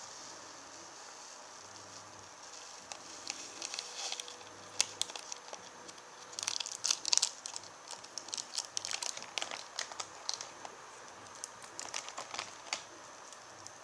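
A small plastic powder sachet crinkling as it is handled and emptied into the mouth of a plastic flask: irregular clusters of crackles, loudest about seven seconds in.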